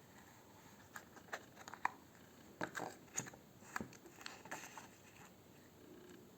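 Foil wrapper of a Kinder Surprise chocolate egg being handled and torn open: an irregular run of short crackles and ticks for a few seconds, then quiet handling.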